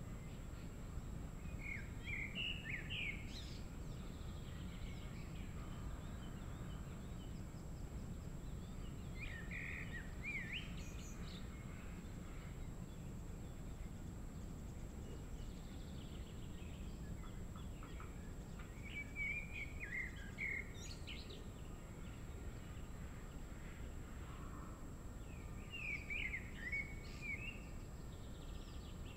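A songbird singing short warbled phrases four times, each about two seconds long and spaced several seconds apart, over a steady low outdoor noise.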